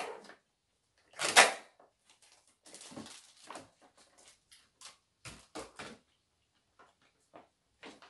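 Clear plastic bakery clamshell box and wrapping being handled: a loud crinkle a little over a second in, then scattered crackles and a few sharp clicks of the plastic.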